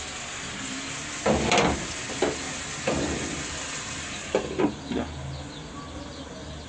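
Chicken sizzling in a caldero with a little sugar added to brown it, with a spoon scraping and knocking against the pot as it is stirred, several times over a steady hiss.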